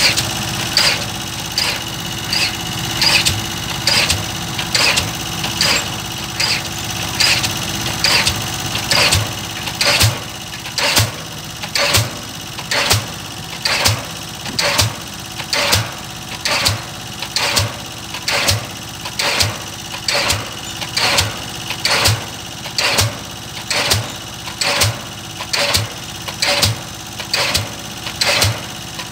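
Diesel pile hammer pounding a square precast concrete pile in a steady rhythm of sharp blows, about one a second, over the steady hum of the crawler crane's engine. About a third of the way in the blows grow louder and deeper, with a heavier thud.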